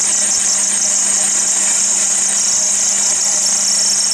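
Chester DB10 metal lathe running steadily while a drill in the tailstock bores into a spinning brass workpiece: an even high hiss over a steady low hum.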